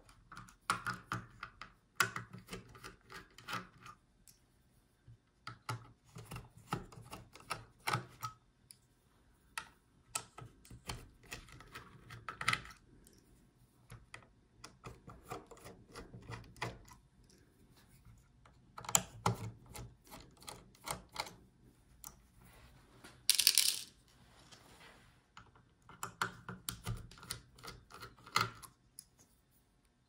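Small screwdriver working the heatsink screws on a laptop motherboard: irregular clusters of light clicks, ticks and taps of the tool and screws on metal and board, with short pauses between. About 23 seconds in comes one brief, louder burst of noise.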